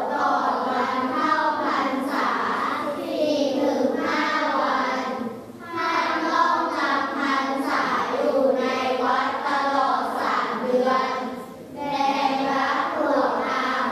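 A class of grade-5 children reading a Thai passage aloud together in unison, with two short breaks between sentences.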